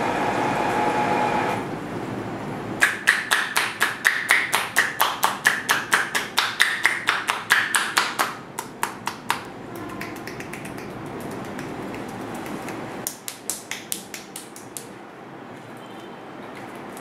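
Water running into a shampoo basin stops a couple of seconds in. Then comes a rapid run of sharp slaps, about six a second for several seconds, from hands striking the head in a percussive head massage. A shorter run of slaps follows near the end.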